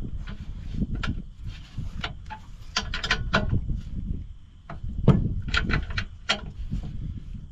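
Hand tools and metal parts clinking and knocking in irregular clicks and clanks during repair work on a combine header, with one louder knock about five seconds in.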